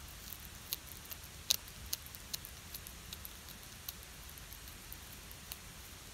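Cat crunching a whole raw river fish: irregular sharp crunches and crackles as it chews through the bones, the loudest about one and a half seconds in.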